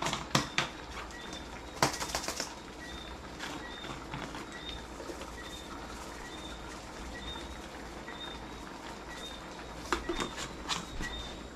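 Powdered seasoning shaken from a shaker bottle over a frying pan: bunches of quick rattling shakes near the start, about two seconds in and again near the end. A faint high chirp repeats about twice a second throughout.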